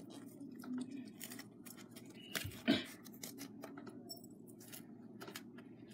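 Faint small clicks and scratches of fingers working a metal keychain loose from a squishy foam cheeseburger toy. A brief voice sound comes a little before halfway.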